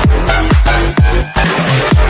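Electronic dance music with a kick drum about twice a second over heavy bass. The bass drops out briefly about a second in.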